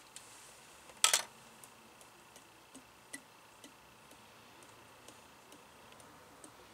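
A sharp slap about a second in as a hand smacks an upside-down plastic sauce bottle to shake out thick sauce that won't pour, followed by faint light ticks about twice a second.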